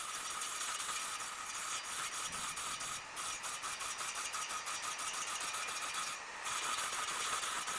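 Power tool motor running steadily, with a brief dip about six seconds in.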